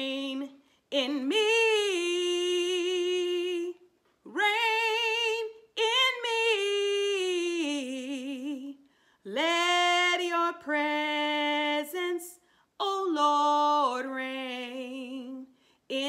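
A woman singing a slow worship song solo and unaccompanied, in six drawn-out phrases with strong vibrato and short breaks between them.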